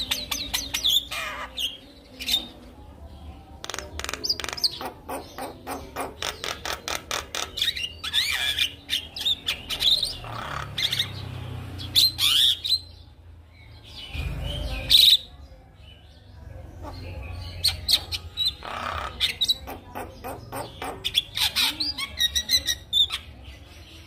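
Javan myna singing a long, varied song: fast trains of short rattling notes mixed with whistled phrases, with a few loud, harsh calls near the middle.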